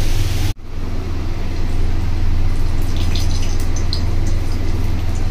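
Steady low mechanical hum, dropping out for an instant about half a second in. Around three to four seconds in come a few light clinks and crackles as dried red chillies go into hot oil in an iron kadai.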